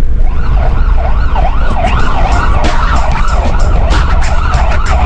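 Police car siren wailing in quick up-and-down sweeps, about twice a second, over a heavy low rumble.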